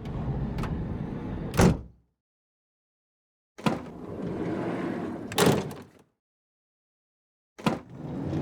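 Van sliding door being opened, take after take: a latch click, the door rolling along its track for about two seconds, then a loud thunk as it hits the end of its travel. The first take finishes less than two seconds in, a full take runs from about three and a half to six seconds, and a third begins near the end.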